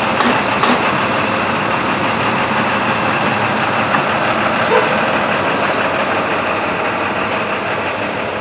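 Large truck engine idling close by, a steady loud noise that eases slightly toward the end, with a few quick ticks in the first second.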